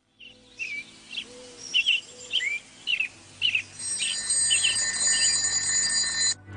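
Birds chirping in a run of short calls, then about four seconds in an alarm clock starts ringing steadily and cuts off suddenly just before the end, as it is switched off.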